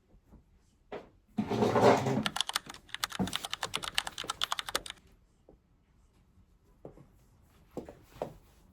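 Typing on a computer keyboard: a fast run of key clicks lasting about three seconds, opening with a louder muffled rustle or bump, then a few scattered taps near the end.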